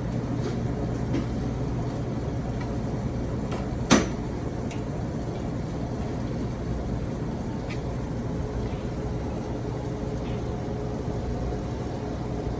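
A steady low machine hum, with faint clicks and one sharp knock about four seconds in, as a long knife slices a tuna loin down against a plastic cutting board.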